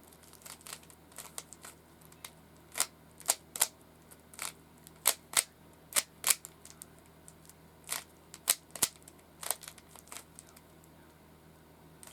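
Rubik's cube being turned by hand: its plastic layers clack sharply as they rotate, in an irregular run of quick clicks.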